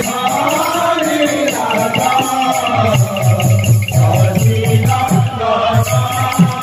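Sambalpuri kirtan music: men chanting together over a barrel drum beating a quick, steady rhythm, with hand cymbals and jingle rings clashing and shimmering throughout.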